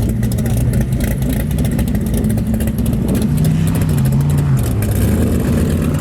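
Formula offroad race buggy engine running loud and hard. Its pitch rises about three seconds in and drops back a second later, over a rapid ticking.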